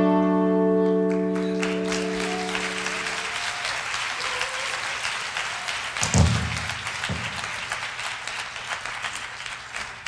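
The last acoustic guitar chord of a song ringing on for about three seconds, while an audience applauds. The applause fades away gradually, with a low thump about six seconds in and another a second later.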